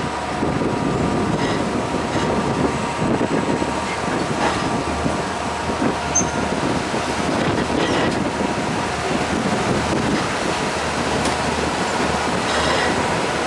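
El Chepe passenger train running along the track: a steady rail rumble with faint, steady wheel-squeal tones and occasional clicks from the wheels and cars.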